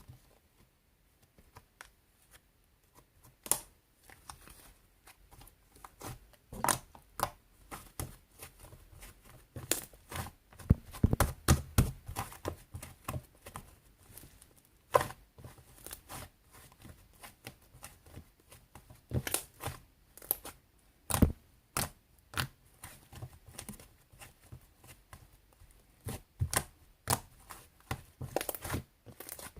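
Irregular clicks and taps with some crinkling, like small objects being handled; no speech or music.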